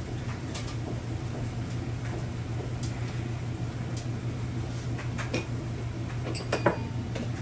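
Light clicks and taps of a micrometer being set on a crankshaft main journal, over a steady low hum. The clicks are scattered and a little stronger near the end.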